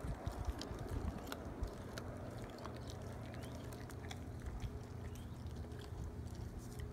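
German Shepherd puppy chewing on a raw chicken drumstick: a quick run of sharp crunches and clicks in the first couple of seconds, then only scattered clicks.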